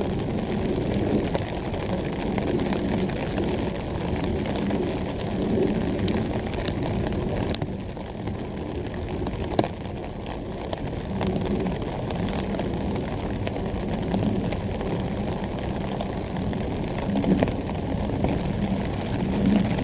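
Steady low rumble of outdoor background noise beside a railway line, swelling a little now and then, with a faint click about ten seconds in.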